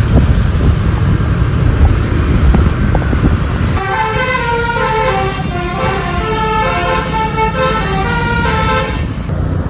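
A loud low rumble of a bus engine and road noise; about four seconds in, a bus's telolet basuri multi-tone horn plays a quick melody of short stepping notes for about five seconds, stopping near the end.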